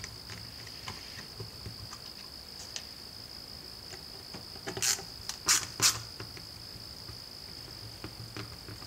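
Small Torx screws being backed out of an impact driver's housing with a hand ratcheting screwdriver: scattered light ticks, then three sharp clicks about five seconds in. A steady high-pitched whine runs underneath.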